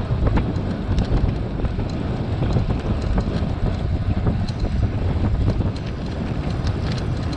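Wind buffeting the microphone of a camera on a moving tandem bicycle, a gusty low rumble with scattered faint clicks from the ride.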